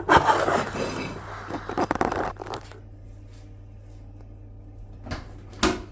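Rustling, crinkling handling noise with small clicks and knocks for the first two seconds or so, then a quieter stretch with a couple of sharp clicks near the end.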